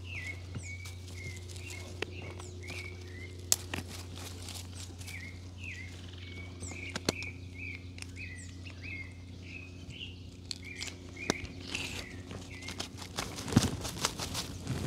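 A bird calling in a long series of short, quickly repeated chirps over a steady low hum, with a few sharp clicks and some rustling near the end.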